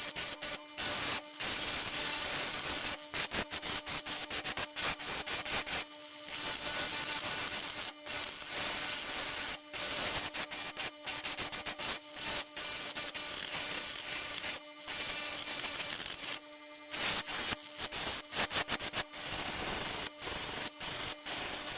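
Drum sander spinning on an arbor while wood is pressed against its sanding band: a steady motor hum under a continuous rasping hiss, broken by many brief dropouts.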